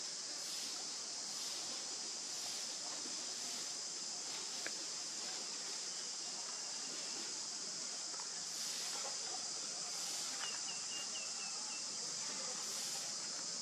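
Steady, high-pitched drone of insects, unbroken throughout. A short run of faint chirps comes about two-thirds of the way in.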